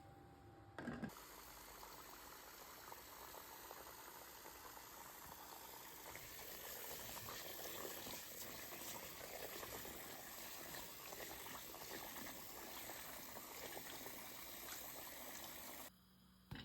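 A short knock, then food in a pot sizzling and bubbling with a dense crackle that grows a little louder midway and cuts off suddenly near the end.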